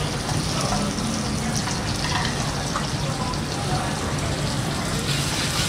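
Duck sizzling in oil on a hot grill: a steady hiss.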